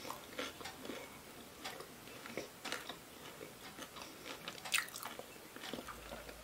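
A person chewing a bite of crispy fried chicken momo (kurkure momo): irregular crunches, the loudest about five seconds in.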